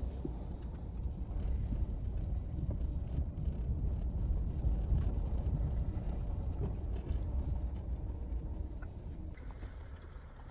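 Off-road vehicle driving over a rough desert wash trail: a steady low rumble with tyres crunching and ticking over gravel and stones, easing off a little near the end.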